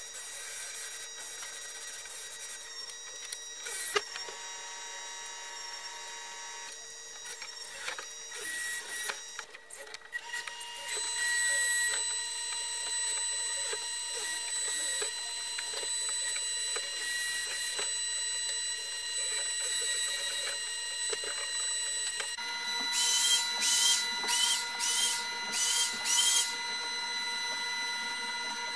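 Electric power tools running with a steady motor whine, switching between tools as they cut into a 3/4 in MDF sheet. In the last few seconds a hand-held router whines in short repeated surges, about one a second, as it cuts.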